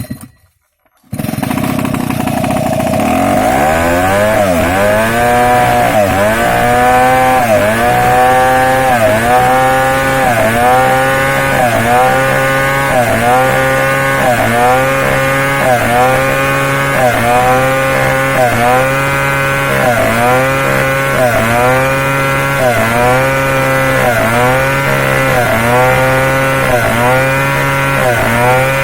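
Chainsaw engine cutting in starting about a second in, revving up, then running under load with its pitch dipping and recovering about once a second, as when sawing along a wooden plank.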